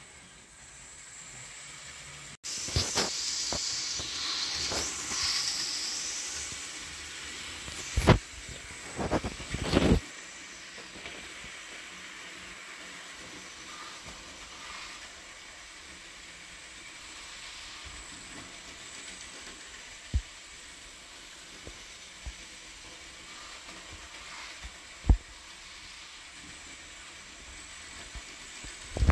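Hornby Smokey Joe OO gauge model locomotive and wagons running around the track, with a steady running noise and a few sharp clicks from the wheels and track. A louder hiss rises a few seconds in and fades after a few seconds.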